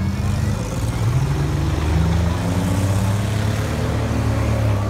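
Engines of demolition derby cars running and revving, the pitch rising and falling as they push around the arena.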